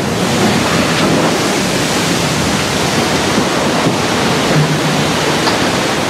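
Water rushing and splashing loudly as a ship is side-launched sideways into a canal, its hull throwing up a wall of spray and waves; a steady, even wash of sound.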